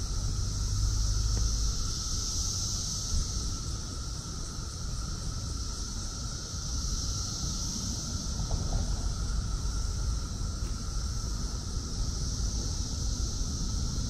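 Brood X periodical cicadas chorusing: a steady high-pitched buzzing that swells and fades slowly every few seconds, over a lower steady drone. Low rumbling noise on the microphone runs underneath.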